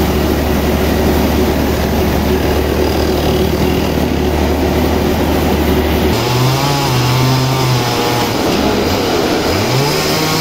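Stihl chainsaw running at full speed, cutting into a large suar (rain tree) log. About six seconds in the sound changes abruptly and the engine speed rises and falls as the saw works through the wood.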